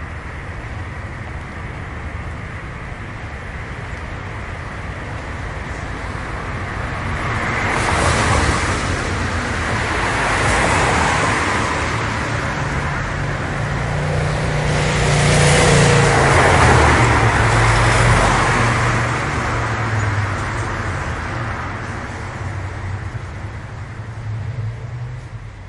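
Cars passing on a wet road, their tyres hissing on the wet surface over a steady traffic background. The loudest passes swell up about eight seconds in and again around fifteen to eighteen seconds in, then fade.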